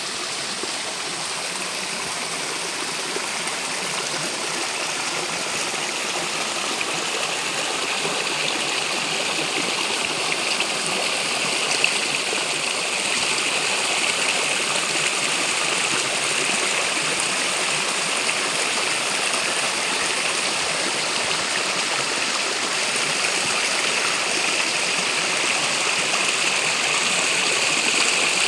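Running water, a steady rushing like a stream, slowly growing louder.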